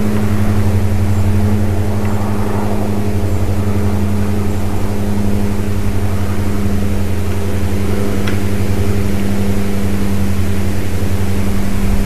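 Steady low electrical hum with hiss from a nest camera's live audio, unchanging throughout.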